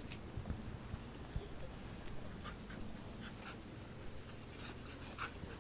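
A dog whimpering: a thin, high whine about a second in, a shorter one just after, and a brief one near the end.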